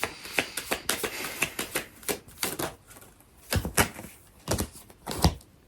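Tarot cards being shuffled and handled: a rapid run of sharp clicks and flicks, then a few heavier taps as cards are laid down.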